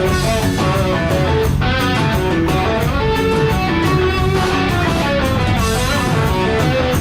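Live band playing an instrumental passage: electric guitar notes over a steady beat.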